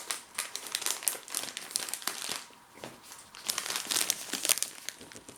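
Plastic snack packet crinkling and crackling in irregular bursts as it is handled, with a short lull in the middle.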